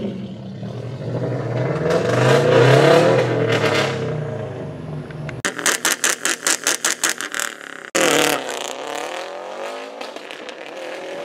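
Turbocharged 2.3-litre four-cylinder of a 2016 EcoBoost Mustang revving up, then the throttle closes about halfway through. A rapid fluttering chatter and then a sharp venting hiss follow from the freshly fitted HKS blow-off valve, and the engine revs dip and climb again.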